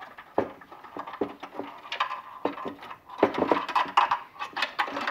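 Phillips screws being backed out of a circuit board with a screwdriver: a run of small clicks, ticks and scraping rattles, busiest in the second half.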